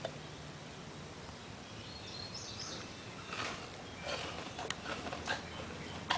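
Gorilla chewing an apple: a low steady hum with a faint high chirp for the first few seconds, then a run of short, soft crunches from about three seconds in.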